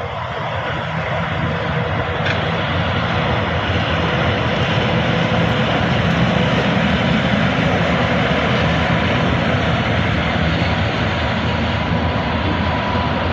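PKP electric locomotive running close by, a steady loud rush of its motors and cooling fans with wheels on the rails, growing a little louder over the first few seconds and then holding.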